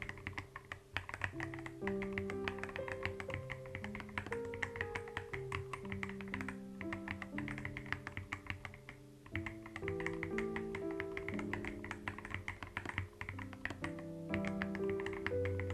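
Computer keyboard typing, rapid clicking keystrokes, over a gentle background music track of slow held notes. The typing pauses briefly a couple of times.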